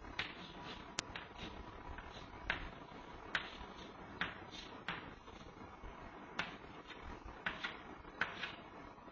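Chalk tapping and scratching on a chalkboard as straight line strokes are drawn: a dozen or so short, sharp clicks at irregular intervals over a faint hiss.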